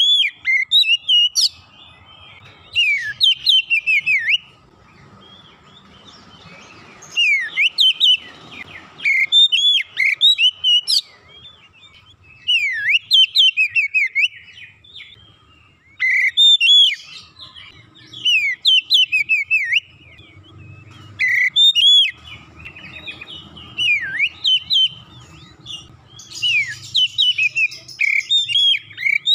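Oriental magpie-robin singing in full song: loud, varied phrases of sweeping whistled notes, each burst a second or two long with short pauses between, repeated again and again. This lively, sustained singing is what fanciers call gacor.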